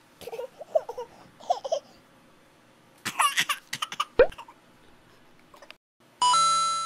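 A baby's voice giggling and babbling in short bursts, then near the end a bright electronic chime tone that lasts under a second and fades.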